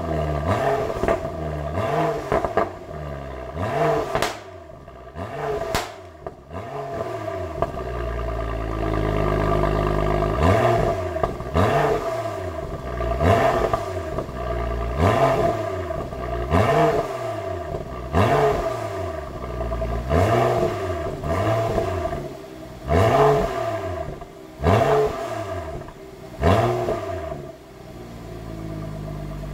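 2014 BMW X5 xDrive35i's turbocharged 3.0-litre inline-six, with the M Performance Power Kit and M Performance Exhaust, revved from idle at the tailpipe. A few revs, a short steady idle, then quick throttle blips about every second and a half to two seconds, each rising and falling in pitch.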